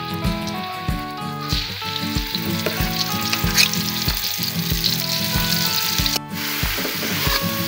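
Blended spice paste sizzling and frying in hot oil in a wok, a steady crackling hiss, over background music with a steady beat.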